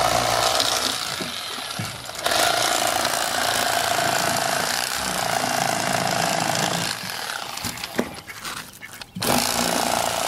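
Electric fillet knife running, its reciprocating serrated blades buzzing steadily as they cut a striped bass fillet along the backbone. The buzz dips briefly about two seconds in, falls away near the end with a single click, and starts again just before the end.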